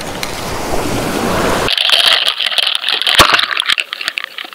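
Wind and surf noise on the microphone that cuts off suddenly about a second and a half in, giving way to the muffled sound through an underwater fishing camera's housing: a steady hiss with scattered clicks and rattles and one loud knock about three seconds in.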